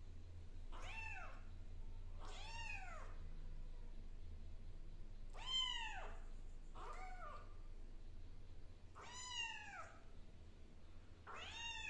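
Young kitten meowing repeatedly: six high-pitched meows, each rising then falling in pitch, about two seconds apart.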